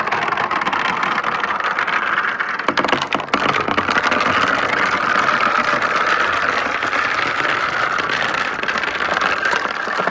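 Marbles rolling along the long rails of a marble run: a continuous rolling rumble with a dense patter of small clicks as they run along the track.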